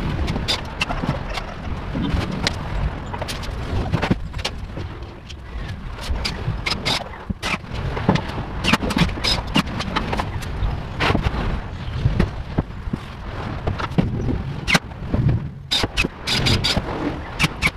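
Irregular knocks, taps and clatter of particleboard cabinet panels being handled and fastened together.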